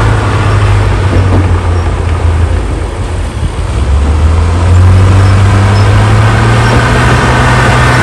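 Crawler bulldozer's diesel engine running under load as it pushes dirt, with a dump truck's engine running alongside. About five seconds in, the engine note rises and grows louder.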